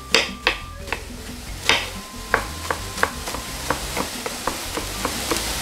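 Kitchen knife chopping red onion on a wooden cutting board: a run of sharp taps, a few at first, then about three a second.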